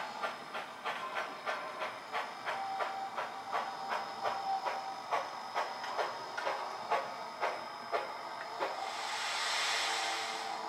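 Model steam locomotive's sound system chuffing as it runs slowly, the chuffs spacing out as it slows, then a long hiss of steam near the end as it comes to a stop.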